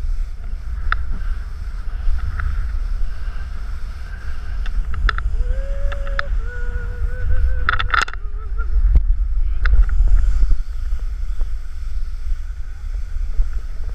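Wind buffeting the microphone of a pole-held action camera as a snowboarder rides fast through powder, a heavy steady rumble with the board's hiss and a few sharp knocks. About six seconds in, a drawn-out, wavering vocal call rises over it for a couple of seconds.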